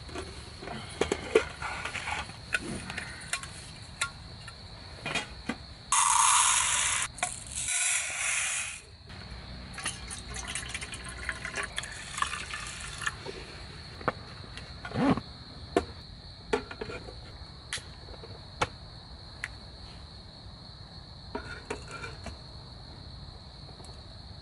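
Aluminium mess tin handled to cook rice: metal lid and tin clinking in scattered sharp clicks, and water poured in over the rice, loudest about six seconds in. A steady high chirring of crickets runs underneath.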